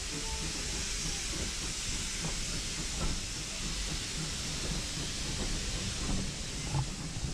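Heritage passenger train hauled by a preserved industrial steam locomotive, running along the line: a steady hiss over a low rumble, with irregular knocks and rattles.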